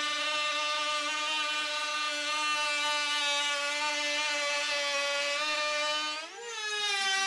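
Compact trim router running with a steady high whine as it rounds over the edge of a Tasmanian oak board. Near the end the sound dips for a moment, then the pitch rises and settles higher.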